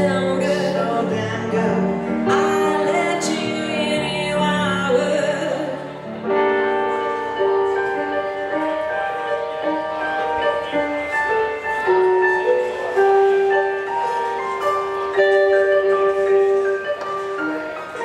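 Live blues band music from a hollow-body electric guitar and a stage keyboard. About six seconds in the low end drops out, leaving a lighter instrumental passage of held melody notes.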